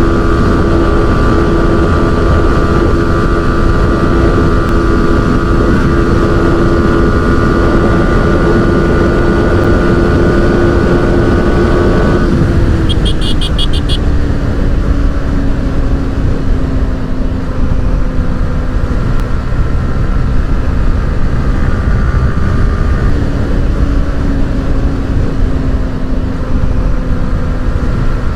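Yamaha FZ V4's single-cylinder engine, fitted with an aftermarket exhaust, running at a steady cruising speed under a loud wind rush. About twelve seconds in the engine note drops to a lower steady pitch, then steps up a little about two-thirds of the way through. A brief high, rapidly pulsing beep sounds shortly after the drop.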